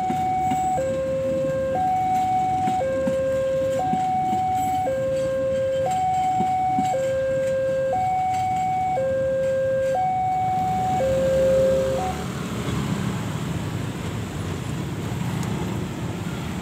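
Railway level-crossing warning alarm sounding an alternating two-tone signal, a higher note and a lower note each about a second long, over the rumble of a passing train. The alarm stops about twelve seconds in, leaving the noise of motorcycle engines as traffic crosses the tracks.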